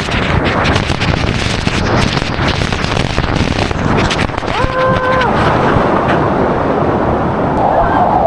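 Splashing, rushing water with wind buffeting the microphone. A short held tone, like a voice or call, sounds about five seconds in.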